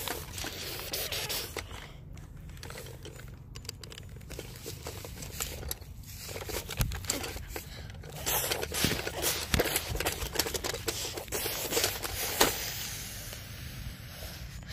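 Irregular rustling and scraping with scattered sharp clicks: grass and a plastic toy dinosaur being handled and rubbed close to the microphone.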